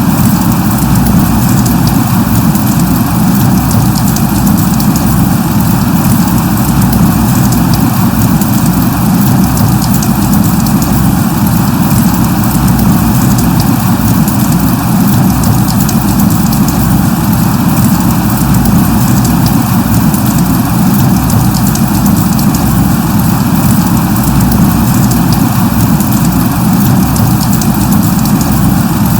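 Steady rain falling: a loud, even rushing hiss with a deep low component and fine ticking of drops, unchanging throughout.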